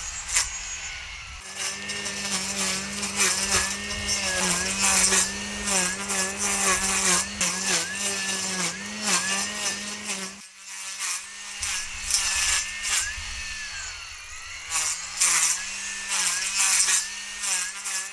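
Brush cutter running at high speed. Its engine note keeps dipping briefly and recovering as the cutting head bites into the grass, over the rapid swishing and crackling of the grass being cut.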